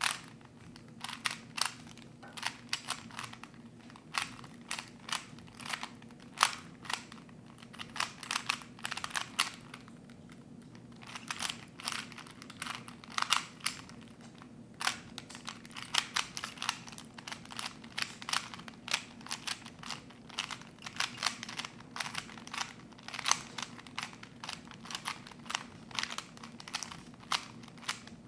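Rubik's Cube faces being turned by hand: quick runs of irregular plastic clicks and clacks with a couple of brief pauses, over a faint steady hum.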